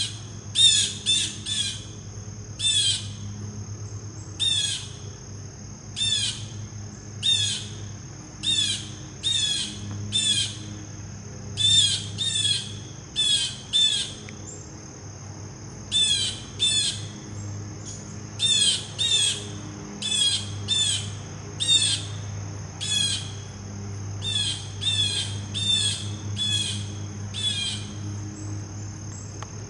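Blue jay calling over and over, short harsh calls often in quick runs of two or three, which stop shortly before the end. A steady high insect drone runs underneath.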